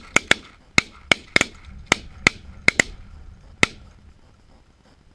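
A volley of about ten shotgun shots from several hunters firing at a flock overhead, irregularly spaced and sometimes overlapping, over about three and a half seconds, then the firing stops.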